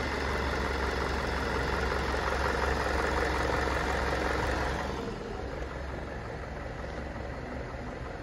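2008 Mercury Mariner engine idling steadily, heard close at the open engine bay. About five seconds in it becomes quieter and stays steady at the lower level.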